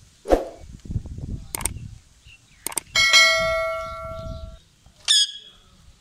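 A rose-ringed parakeet gives two short harsh squawks, one right at the start and one about five seconds in. Between them, a subscribe-button sound effect plays: two clicks, then a bell ding that rings out for about a second and a half.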